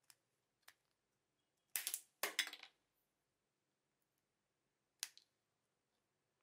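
Small flush cutters snipping and crunching through a toy car's plastic interior piece. There are a couple of light clicks, then two louder crackling cuts about two seconds in, and one more snip about five seconds in.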